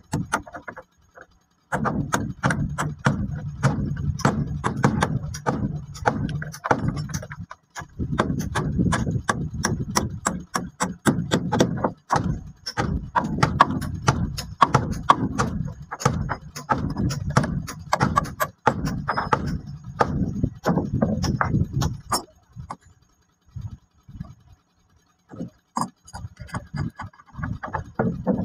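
Claw hammer driving nails into the wooden planking and frames of a boat hull, quick repeated blows in runs with short pauses between them.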